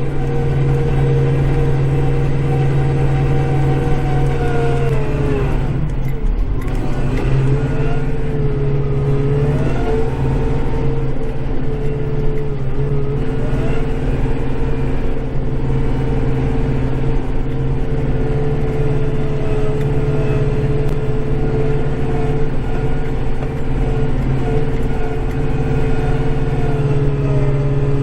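Kubota compact tractor's diesel engine running steadily, heard from inside the cab while plowing snow. About six seconds in the engine speed dips sharply and picks back up as it takes the load, with a smaller dip a few seconds later.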